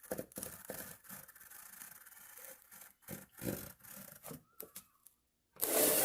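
A cutter blade scraping along a window screen frame, slicing off the excess screen mesh, with a louder, harsher scrape near the end.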